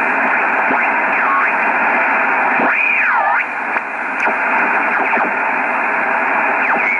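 Yaesu FR-101S shortwave receiver's speaker hissing with band noise as its main tuning dial is turned, with heterodyne whistles gliding up and down as it sweeps across signals. The biggest swoop comes about three seconds in.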